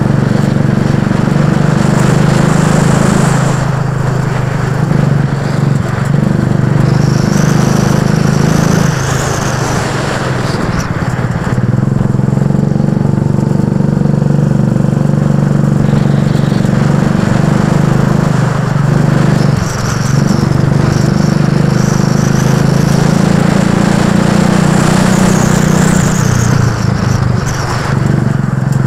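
Go-kart engine running hard through a lap, its note dipping briefly several times as the throttle is eased for corners and then picking up again.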